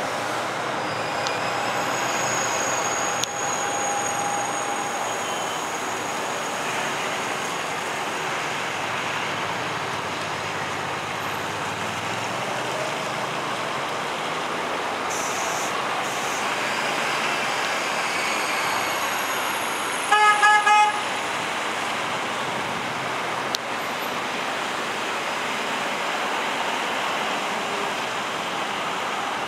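Steady rumble of a TGV trainset rolling slowly through the cutting, mixed with road traffic. About two-thirds of the way through, a horn gives one short, pulsing toot, the loudest sound.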